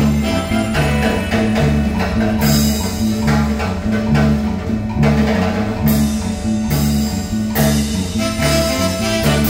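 Marimba band music: mallets on the wooden bars of a marimba playing a dance tune over a steady, repeating bass beat.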